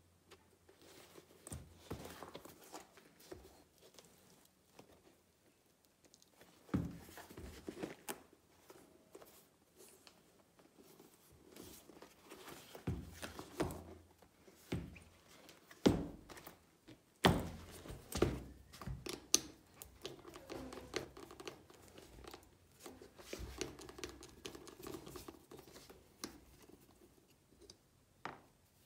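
A Forma motorcycle boot being handled on a workbench: scuffing and rubbing of hands on the boot, with irregular knocks and taps, the sharpest pair about halfway through.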